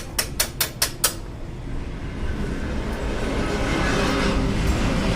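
A quick run of about five sharp metallic clicks in the first second, then the low rumble of a passing vehicle building up and growing loud near the end.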